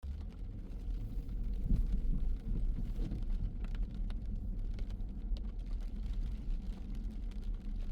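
A car driving: a steady low rumble of engine and road noise, with faint scattered ticks over it.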